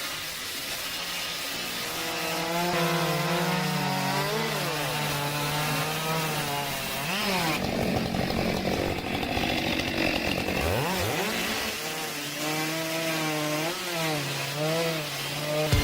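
A small engine working wood at high revs, its pitch dipping and recovering as it takes load, with quick swoops in revs twice, over a rasping cutting noise.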